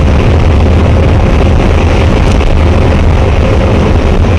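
A car driving on the highway, its engine and tyre noise a steady, loud, low drone as heard by a dashcam microphone inside the cabin.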